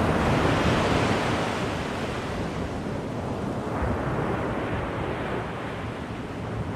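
Ocean waves breaking and washing on a beach: a steady surf hiss that swells in the first second or so, eases off, and swells again about four seconds in.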